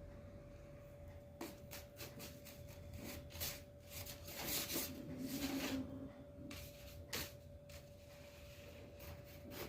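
Paper bag rustling and crinkling in short, irregular bursts as a cat plays in and around it, over a faint steady hum.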